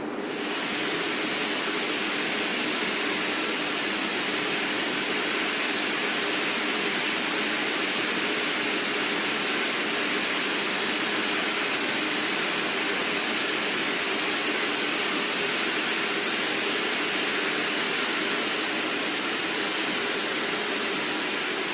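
Cold spray gun running: heated compressed air at 140 psi carrying silicon carbide powder out of the nozzle at supersonic speed, a loud steady hiss. It starts abruptly as the nozzle is switched on.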